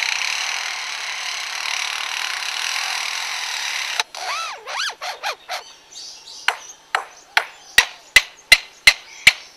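Lyrebird mimicking construction tools. It gives about four seconds of steady saw-like rasping, then a few rising-and-falling drill-like whirs. Near the end comes a run of sharp hammer-like knocks, two or three a second, which are the loudest sounds.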